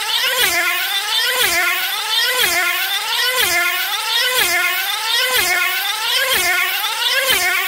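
Tether race car's small two-stroke model engine running at high revs as the car laps on its cable, its pitch dropping sharply each time it passes, about once a second.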